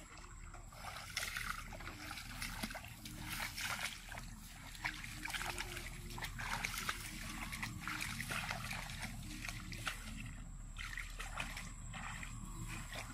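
Footsteps wading through shallow muddy water: irregular splashing and sloshing steps.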